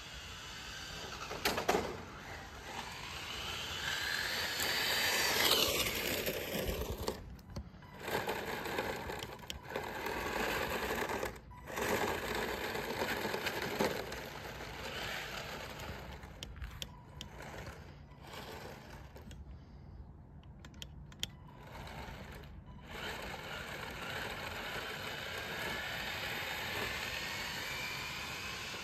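Tamiya MF-01X RC car's 15-turn HPI brushed electric motor and gears whining as the car accelerates, the pitch rising, once early on and again near the end. The sound breaks off briefly several times.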